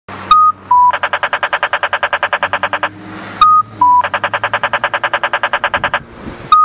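Accessible pedestrian signal push button sounding off. Each time there is a sharp click, a short high beep, a slightly lower beep, and then about two seconds of rapid ticking tones at about ten a second. The pattern plays twice, and starts a third time near the end.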